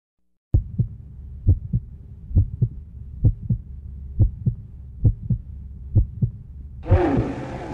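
A heartbeat sound effect: paired low thumps, lub-dub, repeating a little faster than once a second over a low hum. Near the end, voices and a noisy wash come in over the beat.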